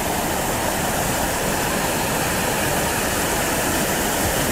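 Foaming whitewater of a creek tumbling over rocks below a waterfall: a steady, even rush of water.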